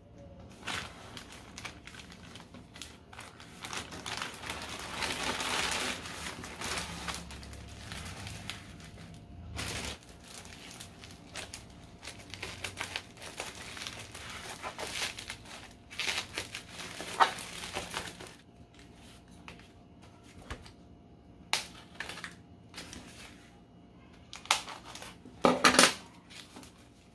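Phone packaging being handled and opened: rustling and crinkling with scattered clicks and taps, loudest a few seconds in and in a couple of sharp knocks near the end.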